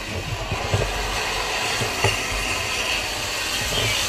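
Steady rushing hiss of water from a 2½-inch fire hose line flowing into a burning room, with a few short knocks.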